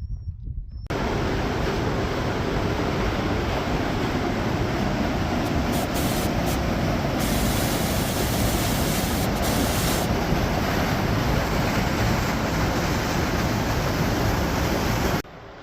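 Waterfall rushing: a steady, loud wash of falling water that cuts in about a second in and stops abruptly near the end.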